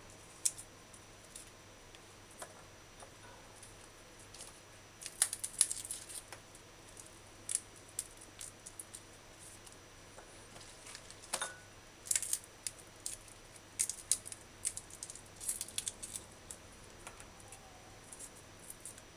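Small kitchen knife scraping and nicking garlic cloves as they are peeled and their ends trimmed by hand: scattered light clicks and scrapes, some in short clusters, over a faint steady low hum.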